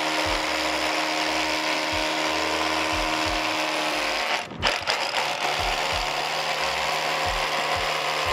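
Hammer drill boring a pilot hole through a brick wall with a long masonry bit: a steady motor whine over rapid hammering. It stops briefly about four and a half seconds in, then starts again.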